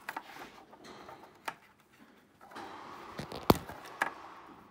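Plastic motorcycle fairing and its wiring being handled: light rustling and scraping with scattered clicks, a sharp one about a third of the way in and a few stronger ones near the end.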